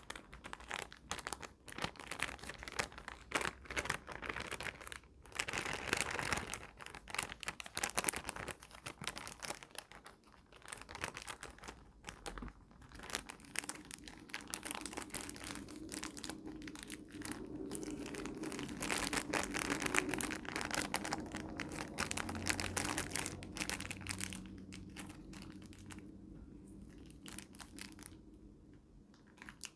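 Plastic candy-kit packaging crinkling and tearing as it is handled, in dense crackly bursts for most of the stretch, with a low hum under it in the middle.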